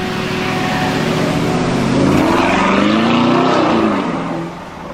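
Porsche Cayenne's engine accelerating past, the note climbing in pitch and growing louder about halfway through, then falling away.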